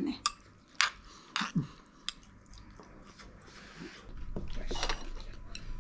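Metal spoon stirring and clinking against a small porcelain bowl, giving a few sharp clicks in the first two seconds. A soft low rumble follows near the end.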